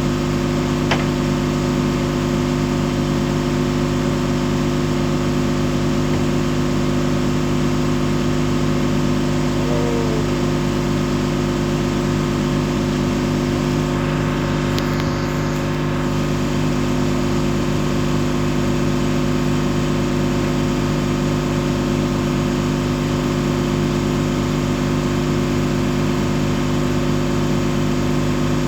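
Steady drone of a ship's machinery running, a low hum made of several unchanging tones. A small click about a second in.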